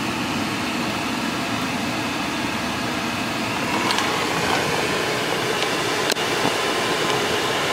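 Steady cabin noise inside a slowly moving BMW car: the engine and tyres hum under the hiss of the air-conditioning fan.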